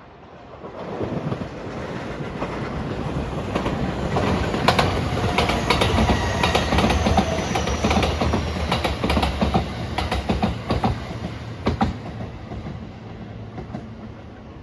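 A train passing close by. Its noise builds, peaks with wheels clacking over rail joints, then fades as it moves away.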